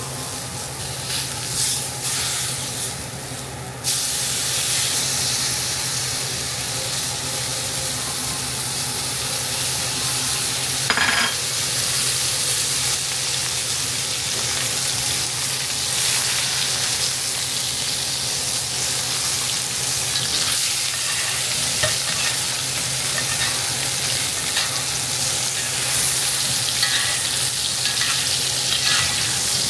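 Ribeye steak sizzling in melted butter in a hot Lodge cast iron skillet, a steady frying hiss. The sizzle grows louder about four seconds in, and there is one short knock about eleven seconds in.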